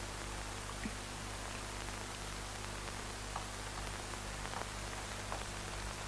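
Steady hiss and low hum of an old soundtrack's background noise, with a few faint soft clicks scattered through it.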